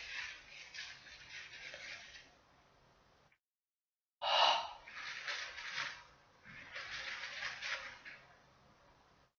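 Paper tissue rustling and rubbing as a CD is wiped dry, in several bouts. The sound drops out completely for about a second around three seconds in, then comes back with a sharp crinkle.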